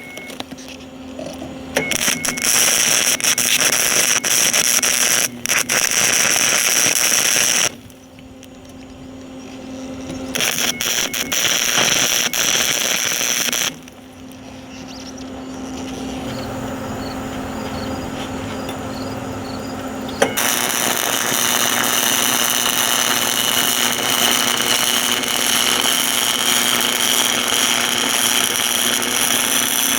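Flux-core wire-feed welder arc crackling and sizzling as a steel weld is laid, in runs that stop twice for a few seconds, leaving a low hum, then run on steadily from about two-thirds of the way in.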